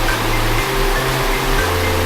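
Background music with held, stepping bass notes, laid over the steady rushing noise of a waterfall.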